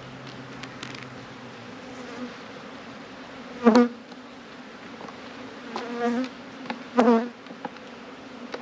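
A swarm of honey bees buzzing around an open hive, a steady hum. Three louder buzzes of under half a second each stand out, about a third of the way in, around two thirds of the way in and near the end, as bees fly close.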